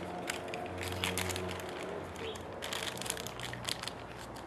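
Plastic packaging crinkling and crackling in the hands as an RC receiver and its small parts are handled and unwrapped from a foam tray, over a steady low hum.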